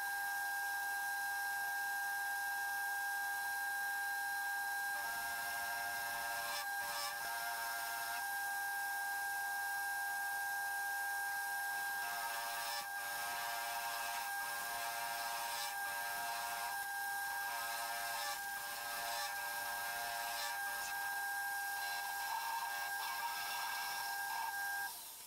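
Homemade metal lathe turning a steel spindle shaft, the tool taking a cut: a steady high whine over a metallic hiss, with a few faint ticks, cutting off at the end.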